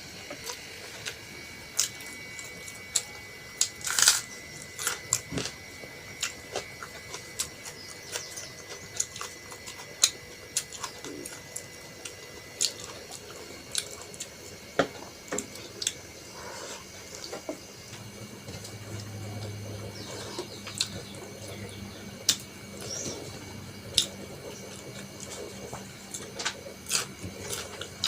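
A person eating rice and curry close to the microphone: wet chewing and mouth smacks, many short moist clicks at irregular intervals.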